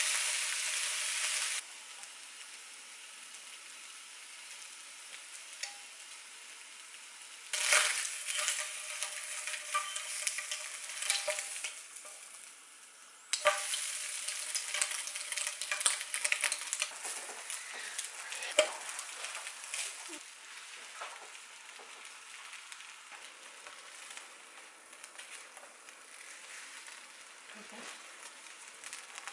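Kimbap fillings sizzling in a frying pan and being stirred, with utensil scrapes and clicks against the pan. The sizzle drops suddenly in level about a second and a half in and jumps back up around thirteen seconds.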